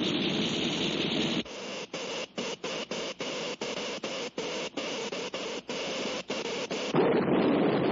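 Cartoon sound effect of electrical static: a steady hiss and crackle that starts to stutter, cutting out a dozen or so times in quick succession. Near the end it gives way to a louder, deeper rush of noise.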